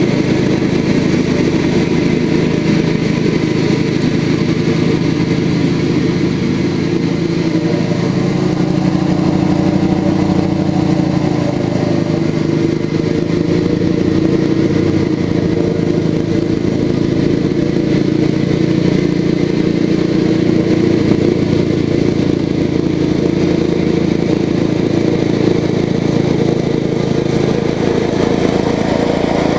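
The 6 hp single-cylinder engine of a 1970 Craftsman mini riding mower runs steadily under load while cutting grass, its pitch sagging a little and recovering partway through.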